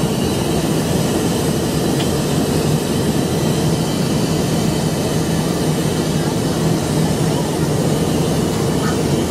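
Steady cabin roar of a jet airliner in flight, engine and airflow noise heard from inside the cabin, with a low steady hum underneath.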